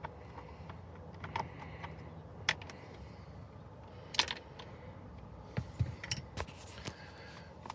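Scattered light clicks and ticks of small hard parts handled by hand: a screwdriver, screws and plastic steering-column trim being worked loose and set down, several sharper taps about halfway through and toward the end.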